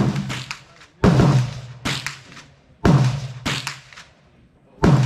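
Gunshots on a shooting range firing line: five sharp shots at uneven intervals, three loud and two softer, each trailing off in a rumbling echo.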